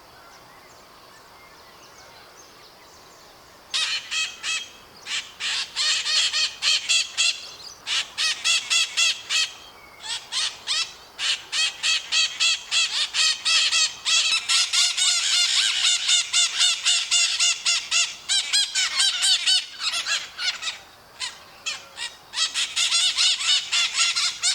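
Maritacas, small Brazilian parrots, screeching in rapid runs of harsh calls, several a second, broken by short pauses. The calls begin after a few quiet seconds.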